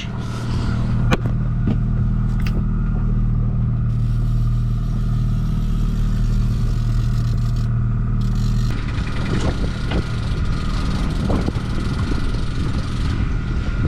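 Boat engine running steadily at trolling speed, a low even hum, with a few sharp clicks in the first few seconds. From about nine seconds in the hum turns rougher and noisier.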